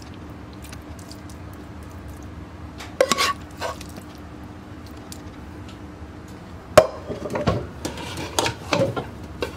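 A spoon scraping and knocking against a non-stick frying pan and cooking pot while masala is spooned onto layered biryani rice. There are a few light clinks about three seconds in, a sharp clank near seven seconds, then a run of scraping and clatter, over a faint steady hum.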